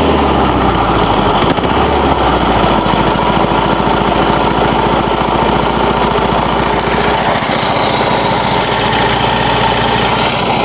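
Briggs & Stratton engine of an old Murray 22-inch push mower idling at a low speed, running steadily with a rapid, even chugging of firing pulses.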